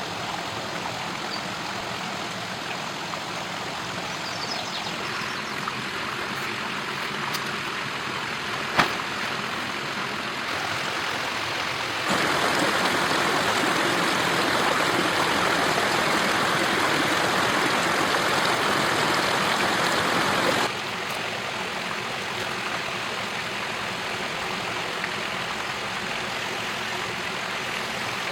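Running water of a stream rushing steadily. The rush turns louder and brighter for about eight seconds, starting about twelve seconds in, and the change begins and ends abruptly. A single sharp click comes about nine seconds in.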